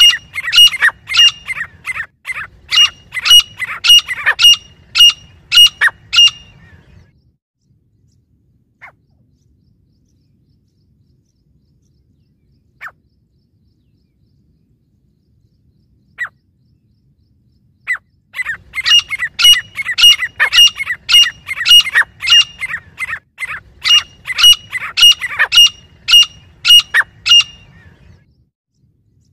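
Grey francolin calling: two long runs of loud, sharp, evenly repeated calls, about two to three a second. Between the runs there are about ten seconds of quiet broken by a few single faint clicks.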